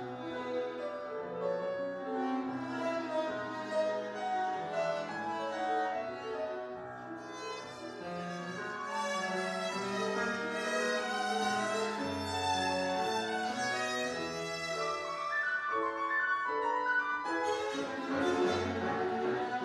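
Viola and grand piano playing classical chamber music: the viola's bowed melody over piano accompaniment.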